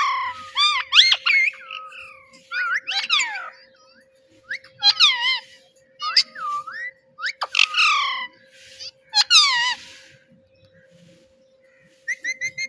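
Pet parrot calling in short, sweeping whistles and squawks, a few calls every second or two, with a quick run of short chirps near the end. A faint steady hum runs underneath.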